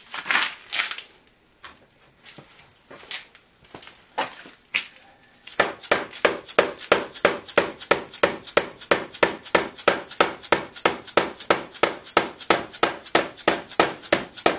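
Rapid light hammer taps on an Atlas 618 lathe's carriage, working the worn half-nut assembly loose. A few scattered knocks come first, then about a third of the way in a steady run of sharp taps at about four a second.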